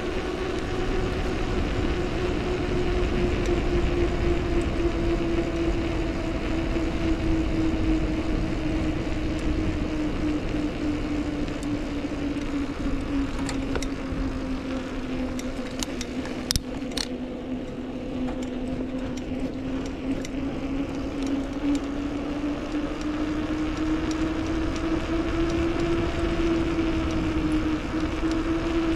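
Riding a bicycle on a road: rolling and wind noise, with a steady hum that slowly drops in pitch and then rises again, and a few sharp clicks about halfway through.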